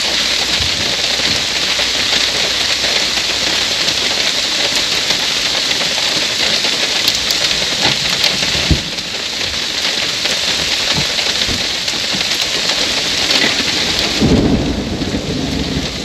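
Heavy rain pouring steadily, with one sharp knock a little past halfway and a low rumble of thunder coming in near the end.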